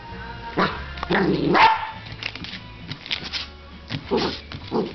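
A dog barking in several short bursts while playfully attacking a piece of sticky paper, the loudest bark about a second and a half in, with background music playing.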